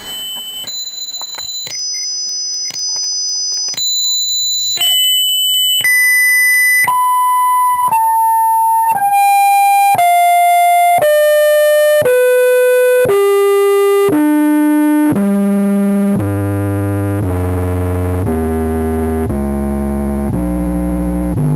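A 10-inch subwoofer in a shallow ported box, run without a crossover, playing a test-tone sequence: single steady tones about one a second, stepping down in pitch from shrill high notes to deep bass. The lowest steps near the end come out buzzy, with many overtones.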